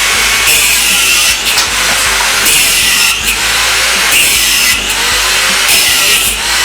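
Angle grinder running and cutting in repeated passes, its high-pitched cutting noise rising and easing off about every second and a half.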